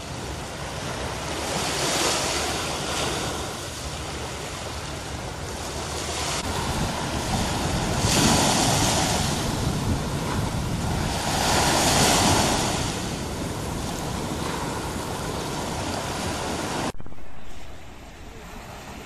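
Sea surf washing over rocks and shallows, swelling louder about three times, with wind on the microphone. Near the end it drops abruptly to a softer wash of waves.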